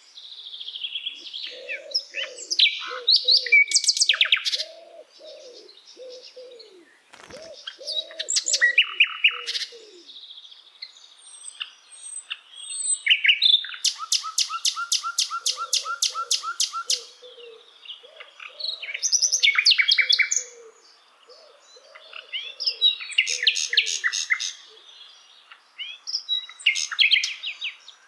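A sikatan londo songbird singing: varied phrases of high chirps and fast runs of repeated notes, broken by short pauses. A lower series of short repeated notes runs underneath during much of the song.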